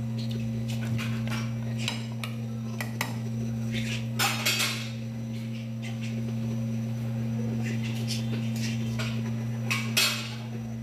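A metal utensil clinking and scraping against an aluminium pressure cooker as a goat stew is stirred, in short irregular bursts, the loudest about halfway through and near the end. A steady low hum runs underneath.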